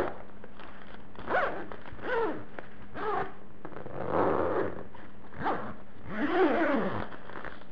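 A zipper being zipped open and closed repeatedly, about seven rasping strokes of varying length, each sliding in pitch, over a faint steady hum.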